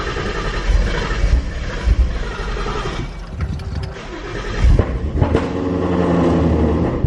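Ford Mustang engine heard from inside the cabin, running rough just after a cold start. The revs surge several times, then it settles toward a steadier idle near the end.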